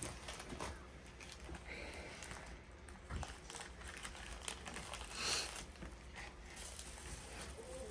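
Faint rustling and small clicks of packaging being handled and opened, with one brief louder rustle about five seconds in.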